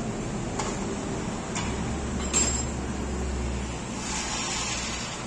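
Steady workshop noise with a low machine hum, broken by a few sharp metallic clinks; the loudest clink, with a brief high ring, comes about two and a half seconds in.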